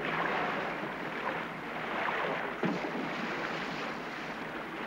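Water splashing and churning as a gray whale calf thrashes its body and tail against the side of a small boat, with a sharper splash a little over halfway through.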